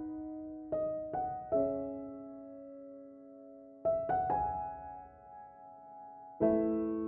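Slow, soft background piano music: a few notes and chords struck in small groups, each left to ring and fade before the next.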